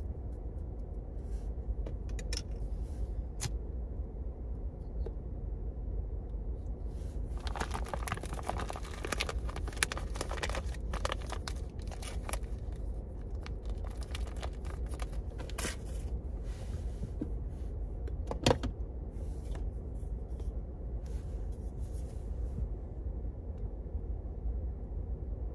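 Steady low rumble in a car cabin, with a couple of sharp clicks in the first few seconds while a pipe is being lit. From about seven seconds in, paper packaging crinkles and rustles for several seconds as it is handled, and a single sharp click comes a couple of seconds after that.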